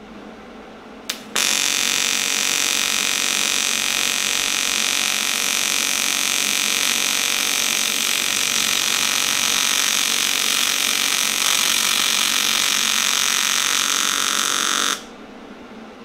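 AC TIG welding arc on cast aluminum, buzzing steadily for about thirteen seconds. It starts with a sharp click about a second in and cuts off near the end.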